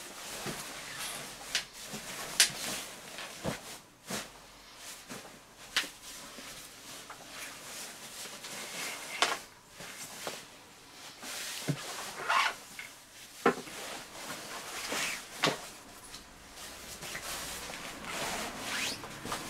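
Synthetic-filled sleeping bag being rolled up by hand: irregular rustling and swishing of its fabric shell, with occasional short sharp taps.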